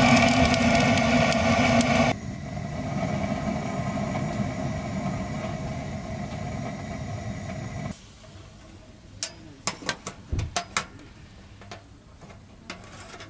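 SOTO slide torch's gas flame hissing loudly into the firebox of a wood stove to light the kindling. It drops suddenly to a quieter steady hiss at about 2 s, and after about 8 s a series of sharp metal clicks and clacks comes from the stove's door and latch being worked by a gloved hand.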